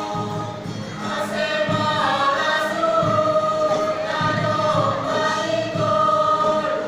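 Mixed choir of women and men singing a Simalungun-language hymn, with long held notes.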